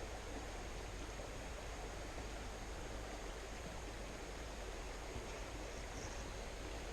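Steady rush of flowing floodwater running through a flooded forest, an even, unbroken wash of water noise.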